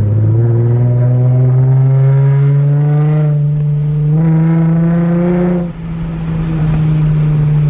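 Lexus IS350's 3.5-litre V6 accelerating, its pitch climbing twice. About six seconds in the throttle comes off and it drops back to a steady cruise.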